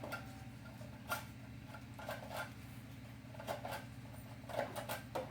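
Faint scattered clicks and taps, a handful over a few seconds, over a steady low hum.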